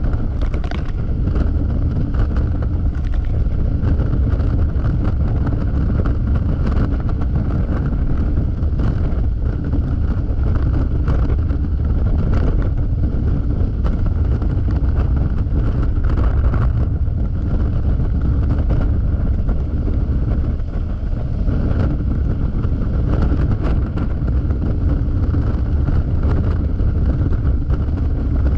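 Steady wind rushing over the action camera's microphone at freeway speed on a Yamaha XMAX scooter, with its single-cylinder engine running underneath at a constant pitch.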